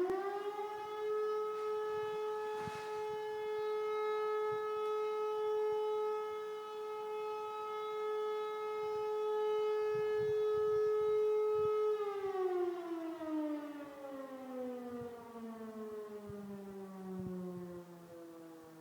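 Air-raid siren being tested: its tone rises quickly at the start, holds a steady pitch for about twelve seconds, then falls slowly and steadily in pitch as it runs down.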